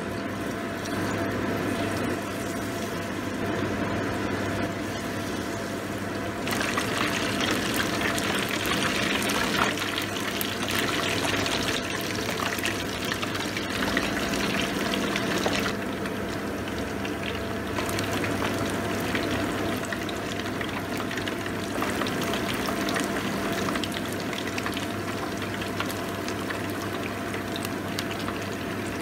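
Batter-coated king oyster mushroom slices deep-frying in hot oil at about 170 °C: a dense crackling sizzle. It gets louder about six seconds in and eases back a little after the middle.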